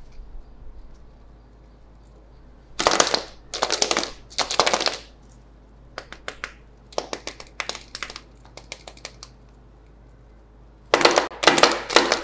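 Fingers handling a glitter-covered toy egg: three scratchy rubbing sounds, then a run of quick clicks and taps, then more scratchy rubbing near the end.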